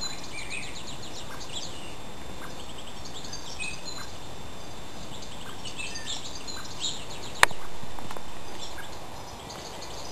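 Small birds chirping and trilling in short repeated phrases over a steady background of outdoor noise. A sharp click about seven seconds in is followed by a louder noise that fades away over the next two seconds.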